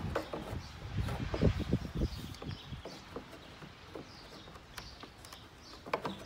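Light clicks, knocks and rattles of hands working at the plastic housing and wiring connector of a car's third brake light, busiest in the first two seconds and again near the end.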